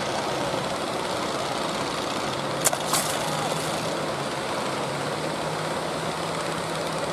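Fishing boat engine running steadily with a low hum under a continuous wash of waves, with two brief sharp knocks a little under three seconds in.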